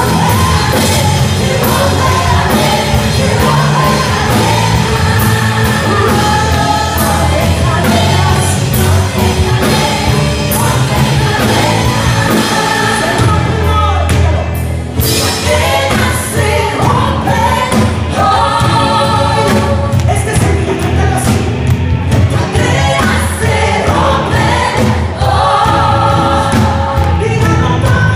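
Live worship band with drum kit and electric guitar playing a gospel song, with women singing the lead in Spanish through the sound system.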